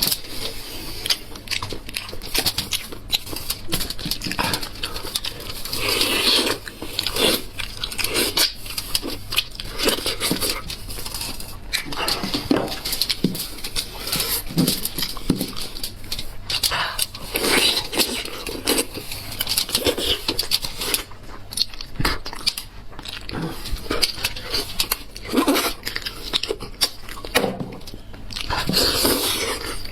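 Close-miked eating of a spiced sheep's head: wet chewing, biting and lip-smacking as meat is torn off and chewed, in a dense, irregular run of clicks and smacks.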